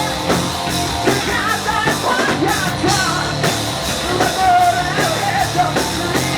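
Rock band playing live at full volume: drum kit keeping a steady beat under electric guitars and bass.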